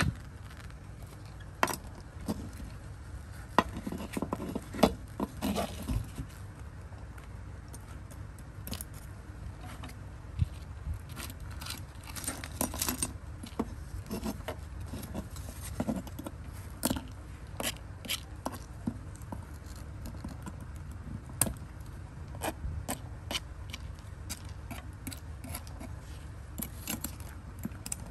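Small hard parts of a toy model car handled and worked by hand: irregular clicks, clinks and short scrapes, over a steady low hum.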